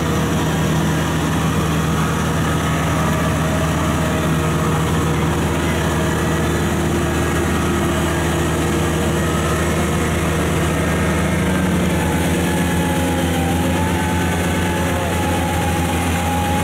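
Kubota combine harvester's diesel engine running steadily, its note shifting slightly about twelve seconds in.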